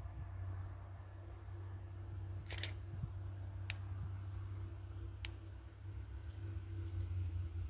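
Faint, steady low hum of a distant SA133 diesel railbus pulling out, under a steady high chirring of insects, with three sharp clicks in the middle.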